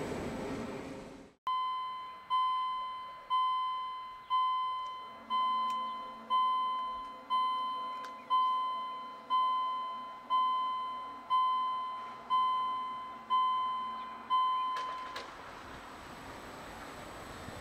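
Railway level crossing warning bell ringing about once a second: fourteen bright, identical dings that each die away, then it stops. It is preceded by train running noise that cuts off about a second in.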